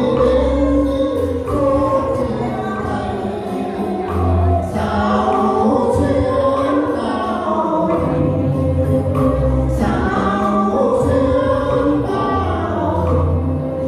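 Song music: a slow arrangement with held choir-like voices over bass notes that change every second or two, without clear sung lyrics.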